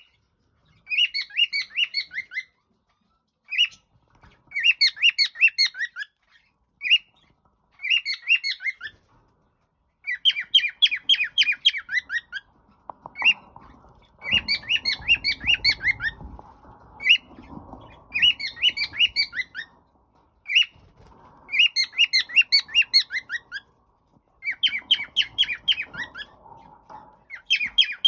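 Cockatiel calling in runs of rapid, high chirps, each run one to two seconds long, with single short chirps and brief pauses between them.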